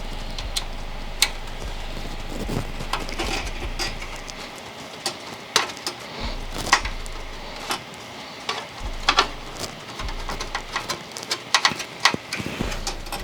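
Irregular clicks, taps and light knocks of a bottom radiator bracket being worked into place in a Lian Li O11 Dynamic EVO PC case by hand, with a few sharper knocks scattered through.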